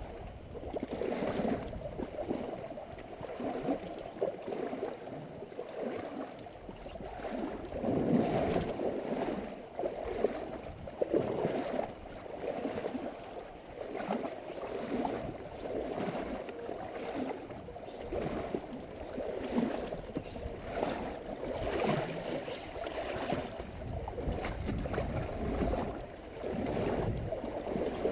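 River water sloshing and splashing against the tubes of an inflatable pontoon boat as it moves through a riffle, swelling in uneven surges every second or two.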